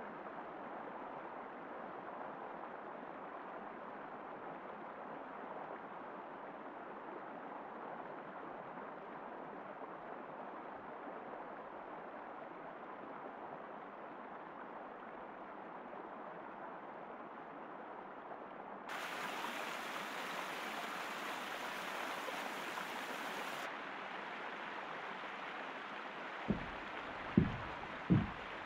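Steady hiss of running river water, growing brighter and a little louder for a few seconds in the second half. Near the end, three footsteps on a wooden footbridge deck, a little under a second apart.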